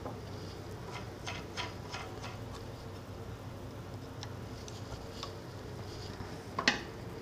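Light metallic clicks and taps of a screwdriver and parts being handled on a drill grinder, with one louder sharp clack about two-thirds of the way in, over a low steady hum.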